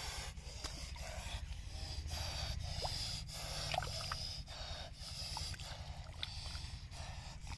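Hands groping through mud and shallow muddy water, with soft wet squelching and splashing, and a few faint short chirps now and then.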